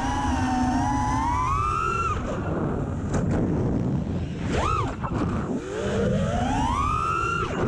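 FPV racing quadcopter's brushless motors whining, the pitch climbing and dropping with the throttle: a rise over the first two seconds that drops away, two short sharp blips about halfway, then a long climb that cuts off near the end. Under it, a steady rush of wind on the onboard camera's microphone.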